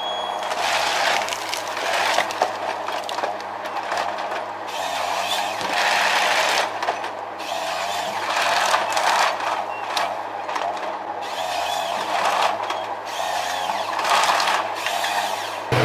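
Forestry machine working timber: a steady diesel engine hum under shifting mechanical clattering and wood-handling noise. It changes abruptly to a louder engine sound at the very end.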